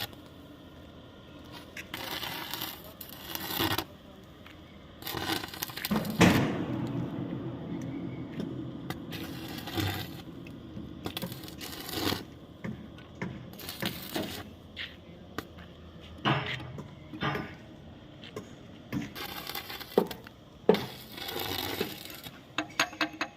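Repeated scraping with a few sharp knocks among them: hand work on an excavator bucket's teeth and their fittings.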